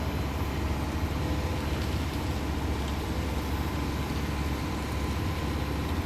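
Heavy diesel engine of a construction crane running steadily while it lifts a bridge girder, a low even hum.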